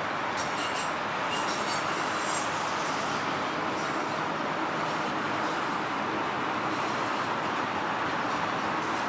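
Freight train of autorack cars rolling past with a steady rail and wheel noise, and a few faint high wheel squeals in the first second or two.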